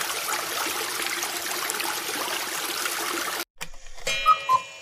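Rushing-water sound effect for a flooding, a steady rush of water that cuts off abruptly about three and a half seconds in. A clock-ticking transition jingle follows, with sharp ticks and two chiming notes near the end.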